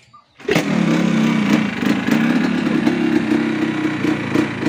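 Yamaha RX-King two-stroke motorcycle engine starting about half a second in, then running steadily at idle with a wavering tone.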